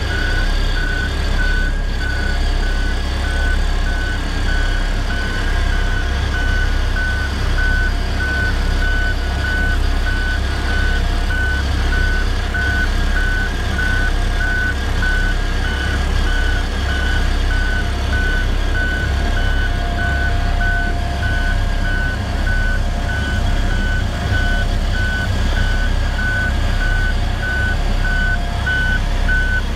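XCMG XS223JE single-drum roller on the move: its diesel engine runs with a steady low rumble while the backup alarm beeps at an even pace, about two beeps a second.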